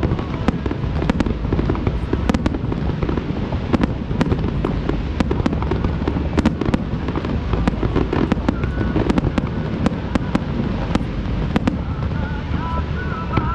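Fireworks display going off in rapid succession: a dense run of sharp cracks and bangs over a continuous low rumble. Music comes in near the end.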